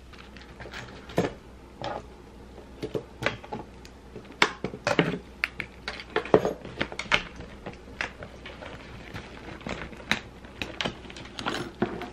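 Irregular light clicks and clinks from handling a quilted leather handbag, its gold metal chain strap knocking and jingling as it is lifted onto the shoulder.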